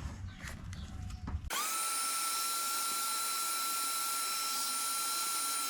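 Shop vac running with a steady high whine over rushing air, which starts abruptly about a second and a half in. Its hose is held against a pushed-in speaker dust cap to try to suck the dent out. Before the whine, a low rumble with a few knocks.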